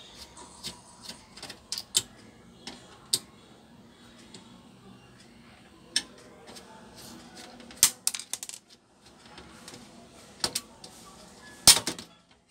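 Scattered clicks and knocks of a liquid-cooler radiator and its fans being worked loose inside a steel PC case, with a louder clatter near the end.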